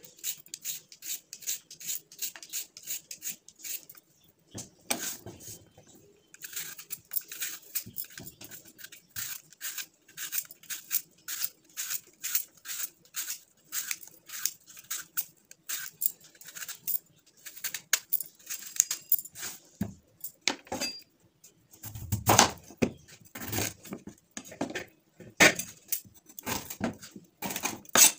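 Hand peeler scraping the skin off a carrot and an apple in quick repeated strokes, with a few heavier knocks on the wooden cutting board about three-quarters of the way through.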